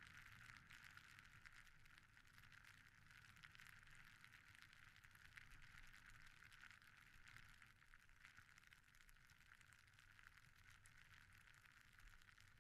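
Faint crackling hiss of a snowboard sliding over snow, steady throughout.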